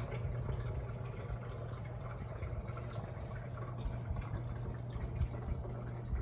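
BREEZEWELL evaporative cooling fan running in cool mode: its pump trickles water through the cooling pad, over a steady motor hum.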